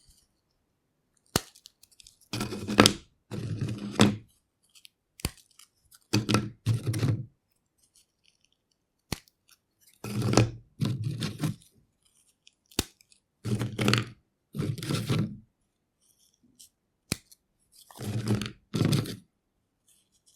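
Cheese crisps being snapped and broken apart by hand: about five sharp single snaps, each followed by a burst of crackling and crunching as the pieces crumble.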